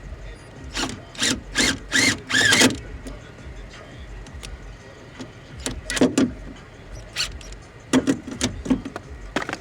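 Cordless drill run in short, squealing bursts while driving metal screws to fasten a car door speaker: a quick run of five pulses about a second in, a pair around six seconds, and a cluster near the end.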